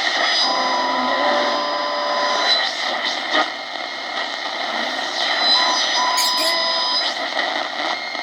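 Portable shortwave radio receiver tuned between stations: a steady hiss of static with several thin whistling tones at different pitches that come and go as the dial moves, and a few brief crackles.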